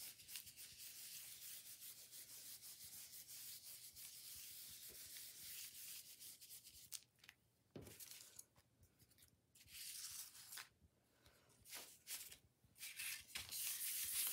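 Stencil brush dabbing paint rapidly through a plastic polka-dot stencil onto paper, a quick scratchy rubbing. It stops about seven seconds in, leaving a few soft knocks and rustles as the stencil is lifted. Near the end the brush is scrubbed around in paint in a plastic palette bowl, louder.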